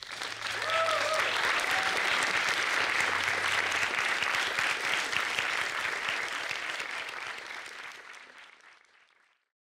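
Audience applauding at the end of a talk, with a brief whoop about a second in; the clapping fades out near the end.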